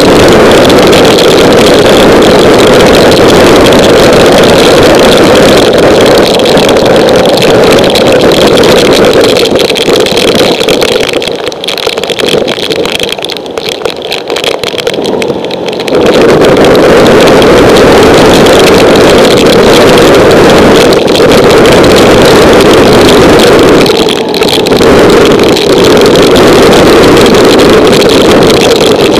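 Loud, steady rush of wind and rain on a Honda ST1100 motorcycle riding at road speed through a downpour, easing for a few seconds in the middle before rising again.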